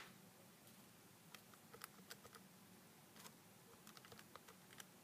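Faint, irregular clicks of the rubber keys on a Casio fx-82AU PLUS scientific calculator as a subtraction is keyed in, about a dozen presses in a few seconds.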